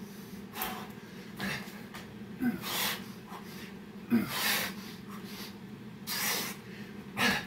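A man's heavy breathing from exertion mid-set of Navy SEAL burpees: a string of loud, noisy exhales and gasping inhales about a second apart.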